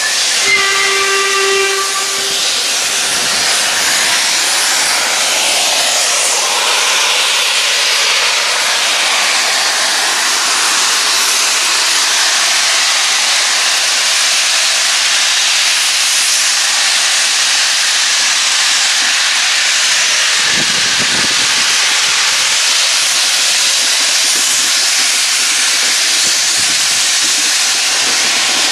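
Steam locomotive sounding one short whistle about half a second in, followed by a loud, steady hiss of escaping steam.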